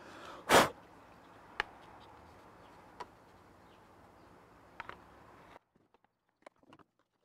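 Handling noises from an electric pressure washer's pump assembly being turned over in the hands: one sharp knock about half a second in, then a few faint clicks over a low hiss. The hiss cuts off abruptly a little past halfway, leaving near silence with faint ticks.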